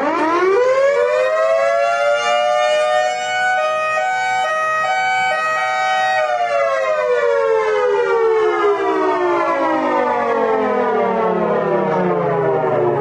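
3D-printed miniature Federal Signal Thunderbolt 1003 siren winding up quickly over about two seconds to a steady wail. It holds the pitch for about four seconds, then winds down slowly for the rest of the time.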